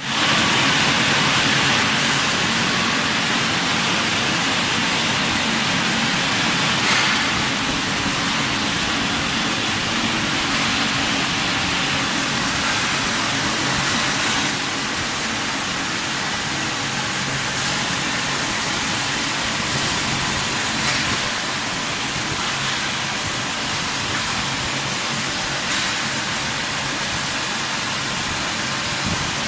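Pipe welding line running: a steady hiss over a low machine hum, with a few faint clicks.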